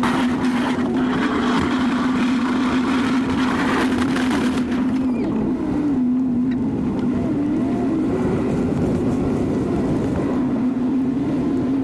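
A 2019 Chevy 2500 pickup's engine running steadily under load as it plows snow, a constant hum whose pitch wavers slightly.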